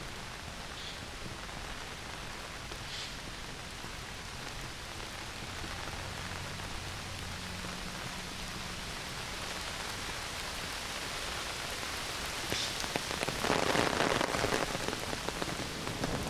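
Heavy summer rain falling through forest trees, a steady hiss of drops that swells louder for a couple of seconds near the end.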